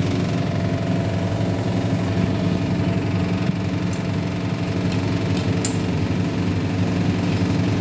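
Steady motor hum made of several even, unchanging tones. A few light metal clicks about four to six seconds in, from a spoon stirring noodles in a steel pan.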